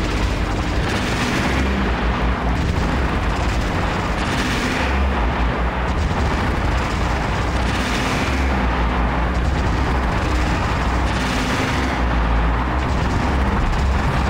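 Live electronic noise music: overdriven, glitchy industrial noise from MicroGranny samples run through a looper and a Make Noise Strega. A heavy low rumble runs under a hissing wash that swells brighter every three to four seconds.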